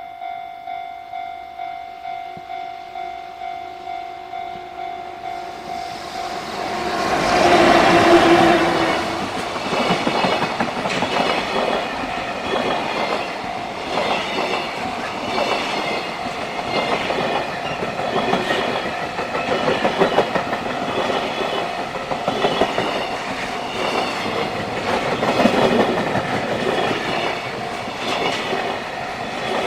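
Level-crossing warning bell ringing about twice a second. About seven seconds in, a freight train sounds its horn, the loudest moment, and then passes with a steady clickety-clack of wheels over rail joints.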